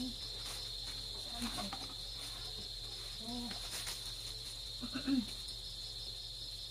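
Crickets trilling steadily at a high pitch. There is soft rustling as a plastic bag and nylon carrier straps are handled, with two brief crinkles.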